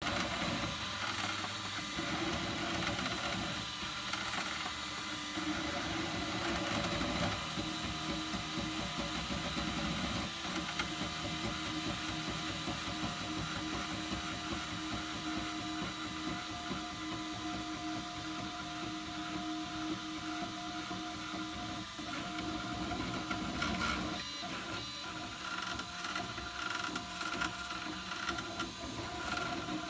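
Ultimaker 2 Extended+ 3D printer running, its stepper motors whining at pitches that change every few seconds as the print head moves. A creaking noise comes from the machine along with them.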